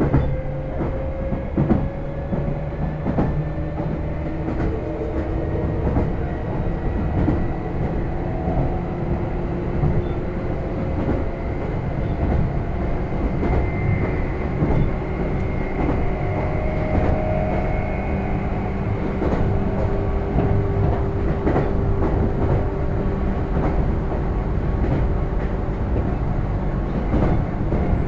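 Meitetsu 6000 series electric train running between stations, heard from inside the car: a steady rumble with motor and gear whine tones that slowly shift in pitch, and the clickety-clack of wheels over rail joints.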